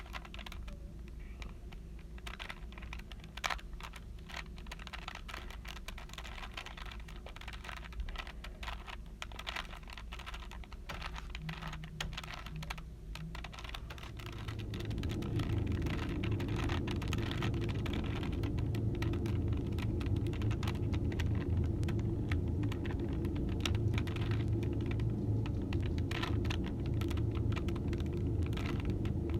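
A plastic Rubik's cube being twisted over and over, giving irregular quick runs of clicks and clacks as its layers turn. About halfway through, a steady low hum comes in and stays, louder than the clicks.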